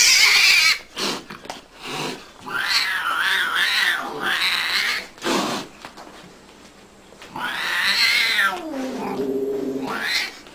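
An angry domestic cat yowling in a threat display: several long, wavering calls with a short lull in the middle, the last one sinking lower in pitch.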